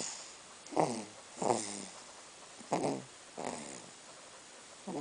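A sleeping four-month-old snoring: short pitched snores that drop in pitch, coming in pairs about every two seconds.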